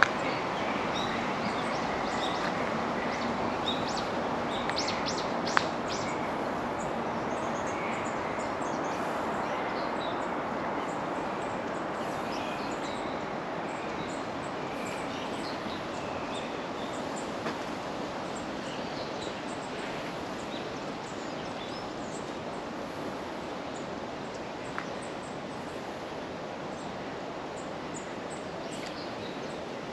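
Outdoor ambience: a steady wash of noise with many short, high chirps and calls scattered through it, and a few sharp clicks, the loudest a little over five seconds in.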